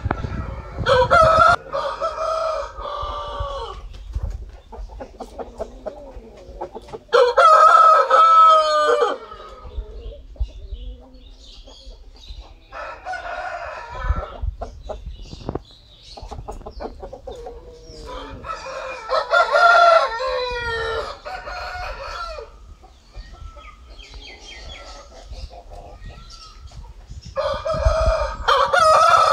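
Aseel rooster crowing again and again: five long crows of two to three seconds each, some louder than others, with fainter short calls between them.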